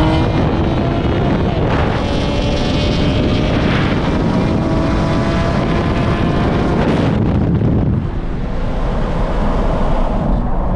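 A car at highway speed, with loud wind and road noise and a faint engine note that climbs slowly for several seconds. About eight seconds in, the engine note fades and the noise eases a little.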